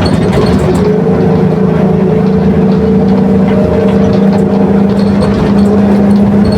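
Marcopolo Torino bus on a Mercedes-Benz OF 1721 chassis under way, its differential growling with a steady gear whine over the running noise, holding nearly constant pitch as at a steady speed.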